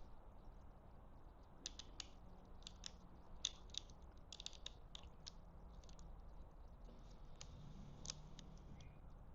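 Faint, scattered small clicks and ticks of mount hardware being handled and fitted to a motorcycle handlebar crossbar, over a low steady hum.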